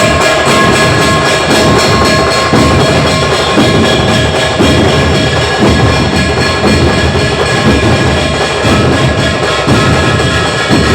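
Village drum troupe (tafa) playing loud, continuous rhythmic drumming, with sharp percussive strokes over a low drum beat and steady held tones running above it.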